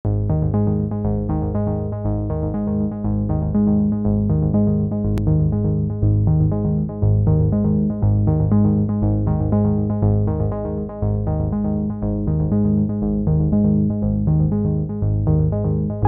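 Background music on synthesizer and keyboard: evenly repeating notes over a steady bass line.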